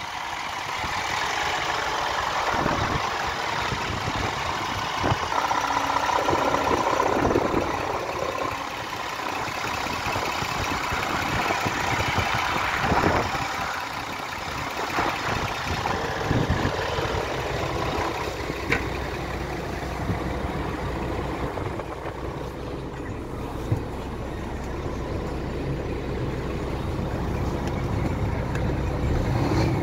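Scania R450 truck's 13-litre inline-six diesel engine running, with a few knocks in the first half and a steady idle in the latter part.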